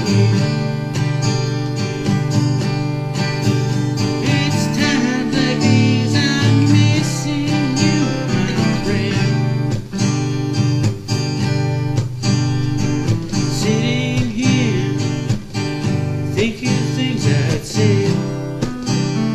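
Acoustic guitar strumming chords, with a second guitar playing a lead melody over it.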